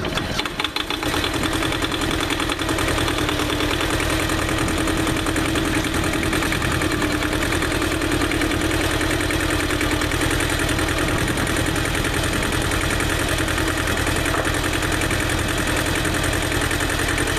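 Ford 1200 compact tractor's three-cylinder diesel engine running steadily while its hydraulics work the snowplow blade up and down. A stronger steady tone rides over the engine from about three to ten seconds in, while the blade is raised.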